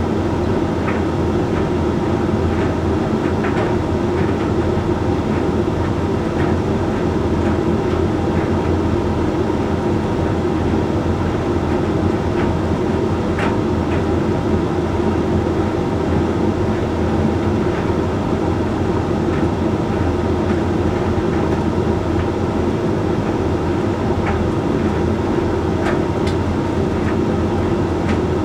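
Hoover Link X Care HLX C10DRGR condenser tumble dryer running steadily mid-cycle on the Whites program, its drum turning with a constant hum and rumble. A few light ticks sound now and then over the hum.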